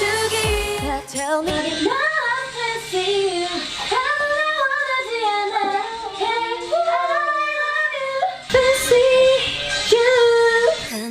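A female K-pop vocalist singing over backing music, with several long held notes near the end.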